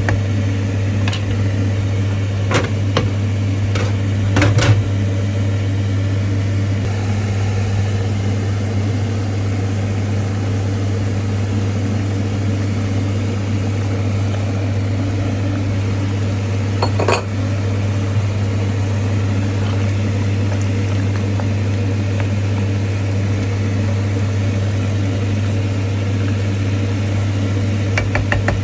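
A steady low hum of a running kitchen appliance while cooking at the stove, with a few short clinks of a utensil against a pan, the loudest about five seconds in and another near seventeen seconds in.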